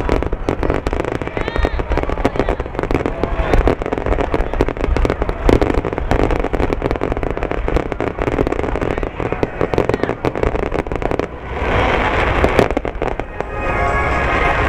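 Fireworks going off in rapid succession: dense, continuous crackling and popping, turning to more of a hiss near the end.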